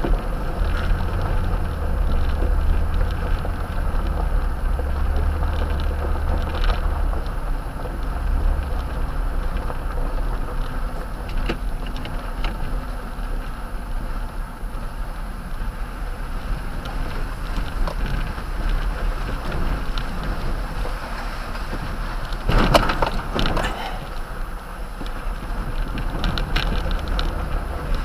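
Toyota Tundra driving slowly on a gravel dirt track, heard from inside the cab: steady tyre and road noise over a low engine hum. A short clatter of knocks and rattles comes a little after three-quarters of the way through, as the truck goes over a bump.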